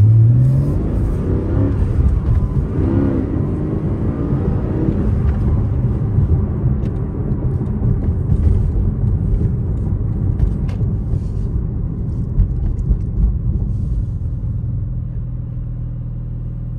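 Porsche 718 Cayman GTS's naturally aspirated 4.0-litre flat-six heard from inside the cabin while driving: the engine's pitch climbs in the first second and rises and falls again about three seconds in, then it settles into a steady low drone over road and tyre rumble, easing slightly near the end.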